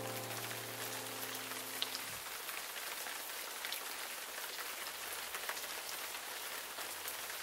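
A steady rain-like hiss with scattered small ticks. A held chord of soft background music fades out about two seconds in.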